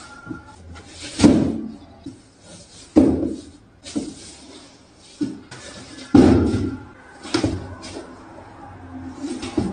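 A cat moving inside a cardboard box, bumping the walls: a series of irregular hollow knocks and thumps, each dying away quickly.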